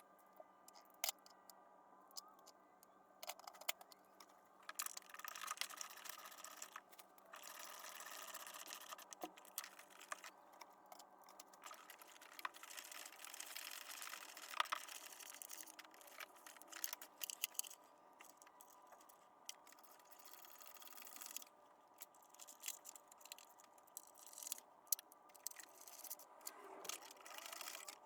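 Faint, scattered clicks and light rattling, with stretches of soft rustling, from parts and hand tools being handled during engine reassembly.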